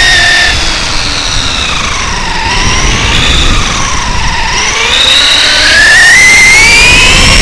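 The brushless electric motor and geared drivetrain of a Traxxas E-Revo 1/10 RC truck whining. The pitch falls over the first couple of seconds as the truck slows into a bend, then rises again from about five seconds in as it speeds up, over a rough rumble.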